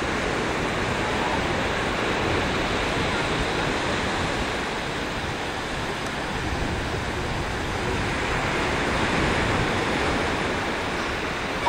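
Sea surf washing onto a sandy beach: a steady, even rush of breaking waves.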